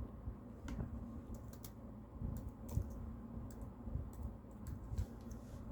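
Typing on a laptop keyboard: a dozen or so light, irregular key clicks.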